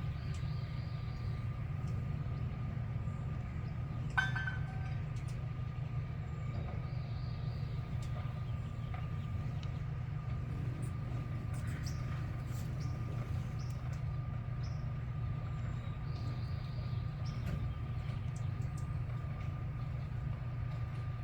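Steady low rumble with a thin constant tone above it. Faint bird calls come and go, with one short, louder call about four seconds in.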